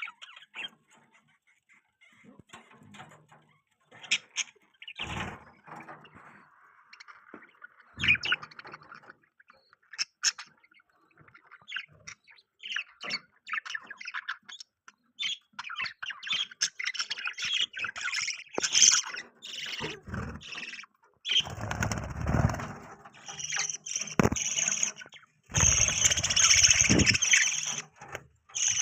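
Budgies chirping and chattering, sparse at first and growing busier and louder through the second half. Several louder rustling bursts cut in, the loudest near the end.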